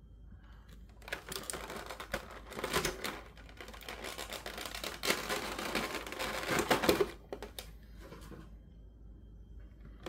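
Toy packaging being opened by hand: a run of rustling and rapid clicking that starts about a second in and stops near seven seconds.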